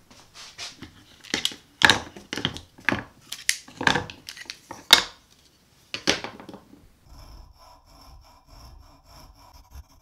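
Plastic spring clamps being opened and set down on a wooden board, a run of sharp, irregular clacks. Near the end, a coping saw cuts into a glued wooden sheath blank held in a vise, a rasping in quick, even strokes.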